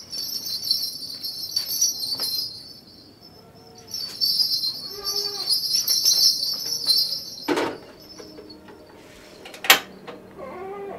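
Steady high trilling of insects, broken briefly about three seconds in, with a knock about seven and a half seconds in and a sharp click near the end as a large aluminium pot is set on a gas stove.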